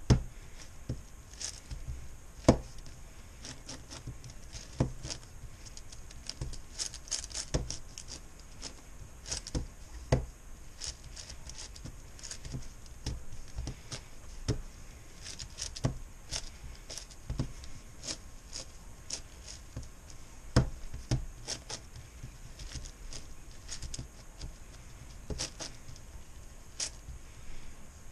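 A MoYu Meilong 10x10x10 M puzzle cube being turned one-handed during centre building: irregular plastic clicks and clacks as its slices turn, a few of them sharper and louder than the rest.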